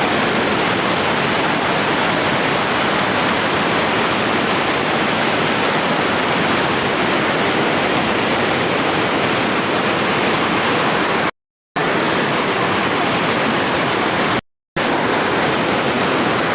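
Waterfall: a steady, even rush of falling water that cuts out completely twice for a moment, about eleven and fourteen and a half seconds in.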